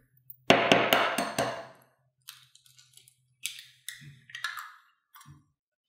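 A hen's eggshell being cracked and pulled apart by hand over a small bowl: a loud crackling crunch of shell about half a second in, then a few smaller clicks and crackles of shell.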